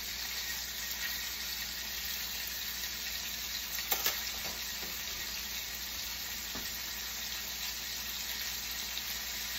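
Steaks sizzling steadily in a hot frying pan, with a brief knock about four seconds in.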